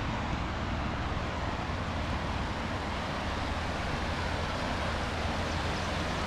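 Swollen, muddy river in flood rushing steadily past its bank, a constant wash of water noise, with a low wind rumble on the microphone.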